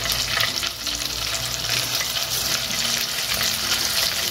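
Pieces of raw salmon sizzling steadily in hot olive oil in a frying pan as more pieces are laid in.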